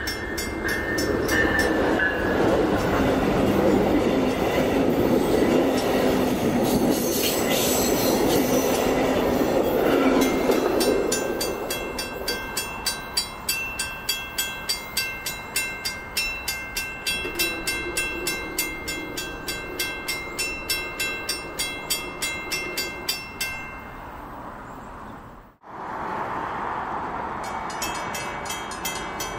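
VIA Rail Siemens Venture passenger train passing close by, loud for about ten seconds, then its wheels clicking over rail joints about twice a second as it draws away. Near the end the sound cuts off abruptly and a different steady background follows.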